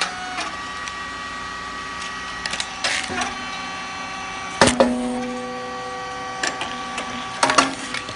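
Puffed rice cake machine (round chip type) running: a steady mechanical hum with scattered clicks, and one sharp pop about halfway through, with a short ringing after it.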